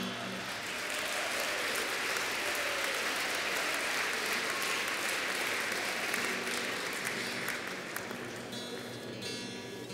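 Audience applause, a dense clapping that thins out towards the end as an acoustic guitar starts playing again.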